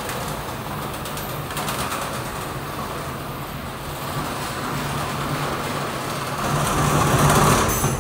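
Detergent powder packing machine and its feed conveyor running: a steady mechanical hum with a rushing noise over it, growing louder about six and a half seconds in.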